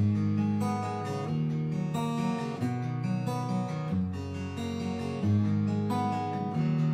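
Background music: an acoustic guitar strummed in a steady rhythm, its chords changing about every second and a half.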